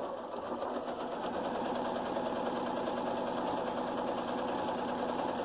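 Janome Memory Craft 6600 computerized sewing machine running steadily, stitching a seam with a fast, even rhythm of needle strokes.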